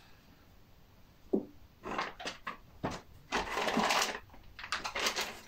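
Hands rummaging in a cardboard shipping box: packaging rustles and crinkles, with scattered clicks and knocks. The rustling is loudest about three and a half seconds in.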